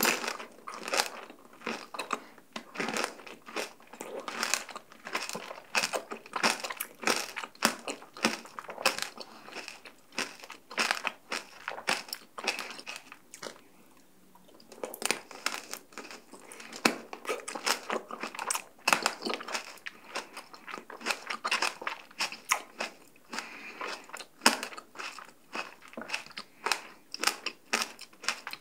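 Close-miked crunching and chewing of tanghulu: the hard sugar shell on candied fruit cracking between the teeth in many sharp crunches, with wetter chewing between them. The crunches thin out for a few seconds about halfway through, then pick up again.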